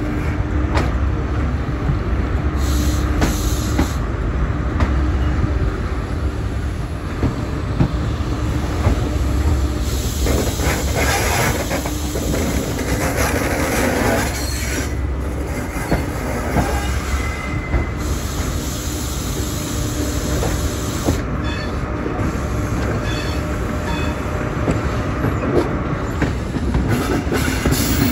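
High Speed Train running slowly under diesel power: a steady low engine rumble with wheels squealing on the curve and clicking over rail joints, heard from a window of the train. The noise swells into a louder stretch about ten seconds in.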